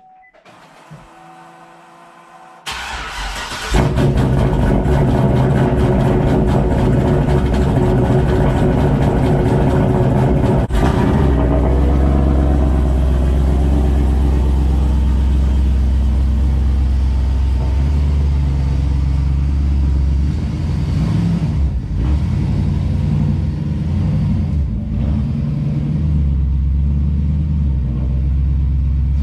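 GMC 2500HD's turbocharged 6.0 V8 being started: a brief crank about three seconds in, then it catches and runs loudly at idle with a deep rumble. The idle note changes about ten seconds in as it settles.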